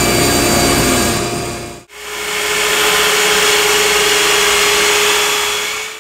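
Table saw running as a 3/4-inch maple board is ripped into strips. It fades out about two seconds in, and a Festool sliding miter saw with its dust extraction runs instead, a steady sound with one constant tone.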